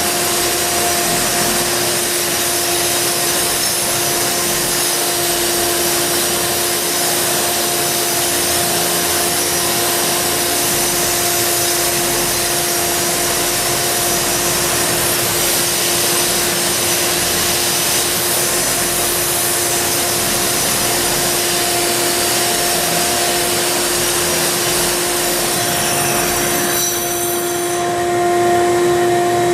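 A grinder grinding thinset off a concrete floor, over the steady drone of a 6 hp Ridgid wet/dry shop vac pulling away the dust. Near the end the grinder is switched off and its whine falls away as it spins down, leaving the shop vac running alone.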